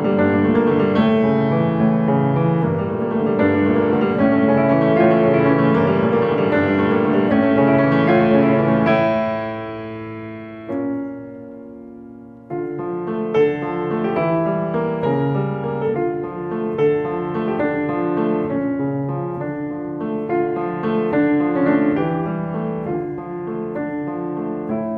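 Piano music. It dies away about ten seconds in, and a new passage begins about two seconds later.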